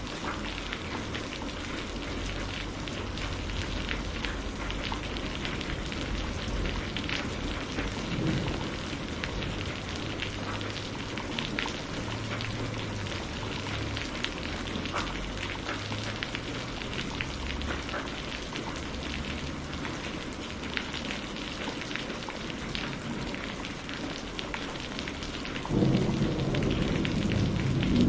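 Steady rain with many small drop ticks and a low rumble underneath. Near the end a thunder rumble builds and grows louder.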